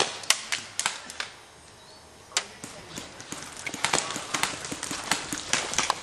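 Gas blowback airsoft pistols firing single shots: sharp, irregular cracks from several guns, a quieter gap about a second and a half in, then a denser run of shots in the second half.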